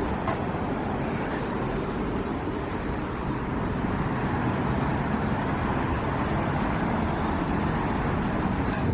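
Steady city street noise of road traffic going by.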